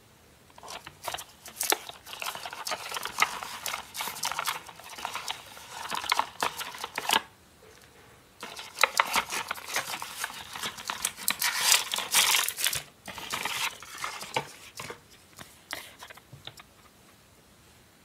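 Hands opening a small cardboard toy box and unpacking it: rustling, crinkling and clicking of the cardboard and packaging in two long stretches with a short pause between them, then a few lighter taps as the pieces are handled and set down.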